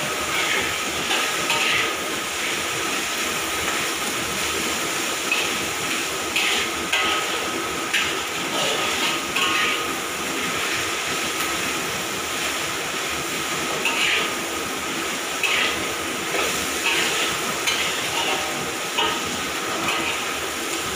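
Metal spatula scraping and turning sliced okra and egg in a wok, in short irregular strokes over a steady frying hiss.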